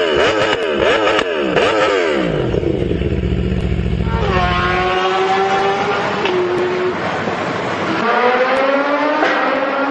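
Motorcycle engine revved in quick blips for about two seconds, then accelerating away, its pitch climbing and dropping back at each gear change.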